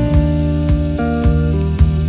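Background music: sustained chords that change every second or so over a steady beat of about two strokes a second.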